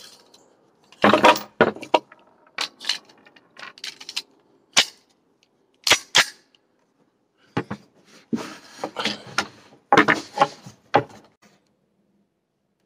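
Sharp metal clicks and clacks of a Smith & Wesson Performance Center 1911 .45 ACP pistol being handled and loaded: the magazine is seated and the slide worked, several loud clacks among lighter clicks, then it goes quiet.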